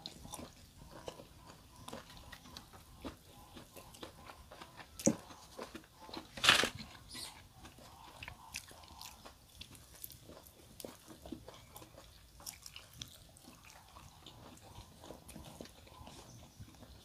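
Close-up eating sounds: chewing and crunching with many small clicks, as a meal is eaten by hand. Two louder sharp noises come about five and six and a half seconds in.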